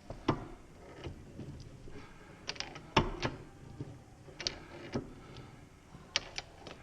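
Metal parts of a ratcheting arbor press clicking and knocking as they are handled and fitted during assembly: about a dozen irregular sharp clicks, the loudest about three seconds in.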